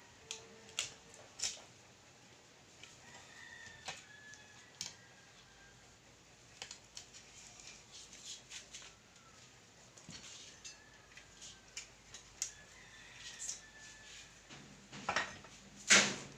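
Scattered clicks and taps of plastic and metal parts being handled while an LED TV is taken apart, ending in a louder clatter near the end. A rooster crows faintly in the background several times.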